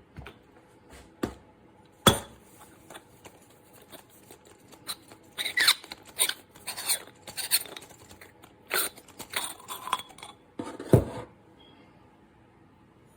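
Irregular clinks, taps and knocks of hard objects being handled and set down, with the loudest knock about eleven seconds in.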